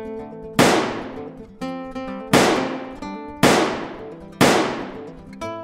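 Background music led by guitar, with four loud, sharp crashing hits laid over it, each dying away over about a second.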